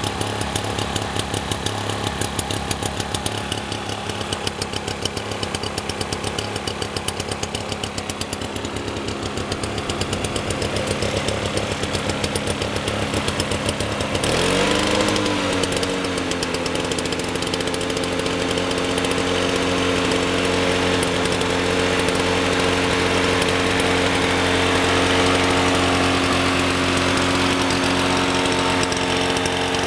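Two-stroke Suzuki engine of a 1987 Toro GTS 120 lawn mower running, sounding like an outboard motor. It runs uneven and choppy at first. About halfway through its pitch rises and it settles into a smooth, steady note at a higher speed.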